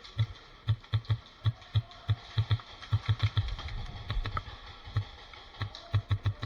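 Footsteps of a person running on a hard floor, dull thuds about three a second, uneven in spacing, with a short pause about two-thirds of the way through.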